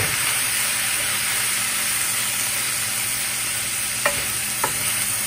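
Shredded bamboo shoots and chicken sizzling steadily as they are stir-fried in a nonstick wok, with a wooden spatula stirring and knocking sharply against the pan twice near the end.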